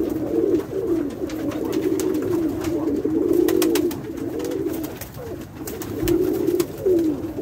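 A loft full of Pakistani high flyer pigeons cooing, many overlapping coos with scattered light clicks.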